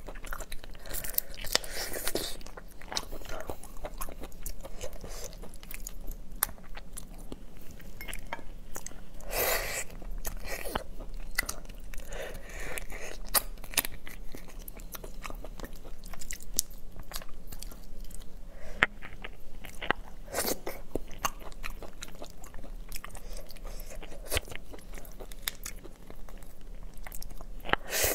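Close-miked biting and chewing of mantis shrimp, with crunching and many irregular sharp clicks.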